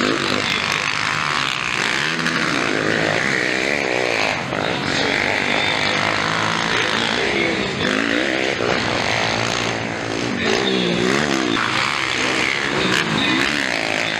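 Motocross dirt bike engines revving up and down over and over as the bikes race, the pitch rising and falling every second or so with the throttle.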